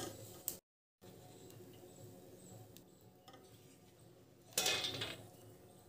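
A steel wire spider strainer scraping and clinking against a nonstick kadhai as fried almonds are scooped out of hot oil. One louder rattling scrape comes a little past halfway; the rest is faint.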